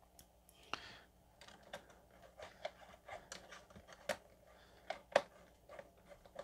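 Small screwdriver starting a screw through a 3D-printed plastic block: faint, irregular clicks and ticks of the tip and screw, the loudest about five seconds in.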